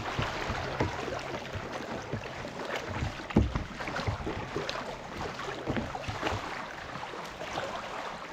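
Water sloshing and splashing with many irregular small knocks, over a faint low hum.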